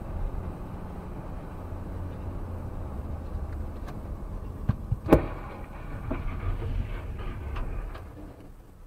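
Steady low road and engine drone inside a moving car, then, about five seconds in, a single loud crash of a car collision on the road ahead, followed by a scatter of smaller knocks.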